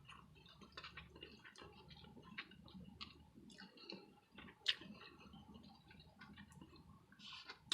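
Faint chewing and wet mouth clicks of someone eating a rice-and-bean bowl close to the microphone, irregular small ticks with one sharper click a little past halfway.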